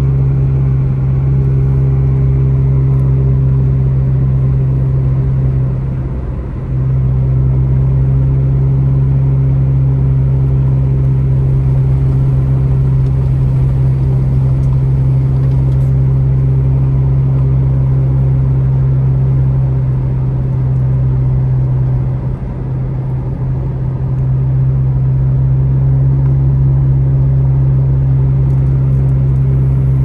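Car driving along a highway: a steady low engine and road drone that dips briefly about six seconds in and again around twenty-two seconds.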